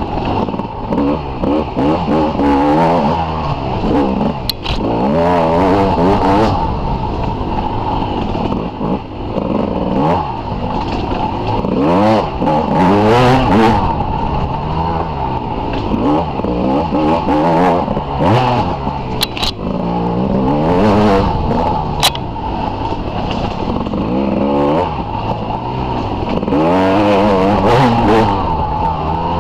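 Dirt bike engine revving up and dropping back over and over as it is ridden along a rough trail. A few sharp knocks cut in, once about four seconds in and twice near twenty seconds.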